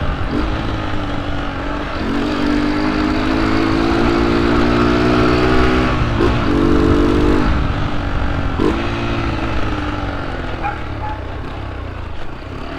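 Honda CG 125 Cargo's single-cylinder engine running under way without its intake hose, giving a growling intake note. The pitch climbs as it accelerates, steps at a couple of gear changes, then falls away toward the end as the bike slows.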